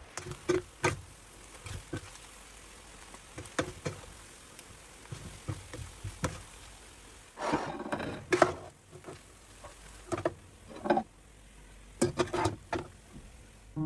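Irregular clicks and knocks of objects being handled, some with a short ring, and a longer rustle about halfway through.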